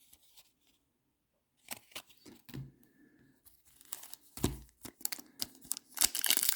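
Foil trading-card pack wrapper being crinkled and torn while someone struggles to get it open. Sparse crackles at first, growing into steady crinkling near the end.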